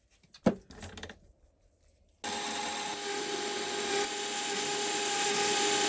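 Lathe turning the gear-knob workpiece with the tool cutting, taking the gaiter section down to size. After a quiet start with a single click, a steady machining noise with a steady whine starts abruptly about two seconds in.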